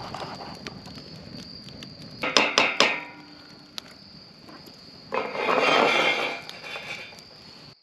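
Crickets chirping steadily, with four quick metallic clanks of cookware on a steel campfire grill grate about two and a half seconds in. Around five seconds in comes a loud rush of noise lasting about a second and a half.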